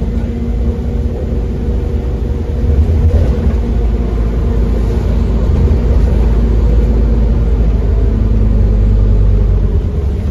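Scania CN230UD double-decker bus's five-cylinder diesel engine heard from inside the bus, running under load with a heavy low rumble. The engine grows louder about two and a half seconds in and eases off near the end.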